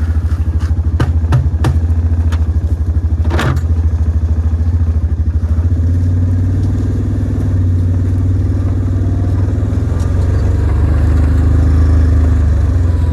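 A small vehicle's engine running steadily at low speed, with a deep pulsing drone. Several sharp clatters or knocks come in the first four seconds, and the engine note shifts slightly about six seconds in.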